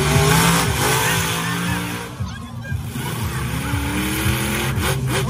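Monster truck engine revving and running hard, its pitch rising and falling as the throttle is worked, with a lull about two seconds in before it climbs again. Two short knocks near the end.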